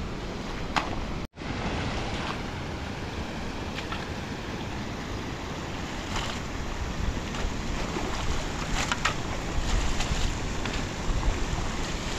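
Muddy rain runoff rushing across a dirt road, with wind buffeting the microphone. A few brief scrapes of a shovel working the wet mud and gravel; the sound cuts out for a moment about a second in.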